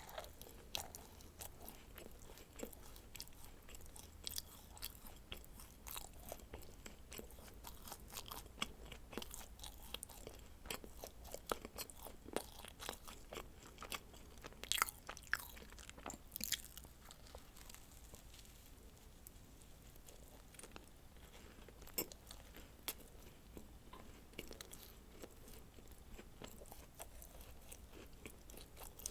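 Close-miked eating of dacquoise: a person bites and chews, giving quick crisp crackles and small wet mouth clicks. The crackling is dense for the first half and thins out to scattered clicks in the second half.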